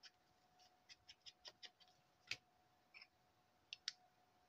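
Near silence with scattered faint clicks and taps, one a little louder about two seconds in, as a handmade paper bookmark is handled and laid down on a cutting mat. A faint steady hum runs underneath.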